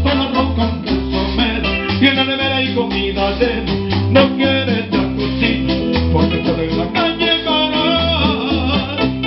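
Live Latin dance music led by an electronic keyboard playing a melody over a steady repeating bass line, with a hand-held metal percussion instrument shaken in a constant rhythm.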